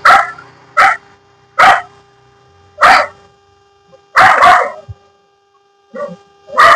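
A dog barking: about six separate barks at roughly one-second intervals, one of them longer, about four seconds in.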